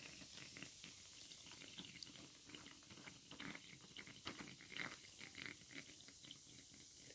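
Very faint scattered small clicks and wet crackles, close to silence: fingers handling a small toy volcano wet with red baking-soda-and-vinegar foam.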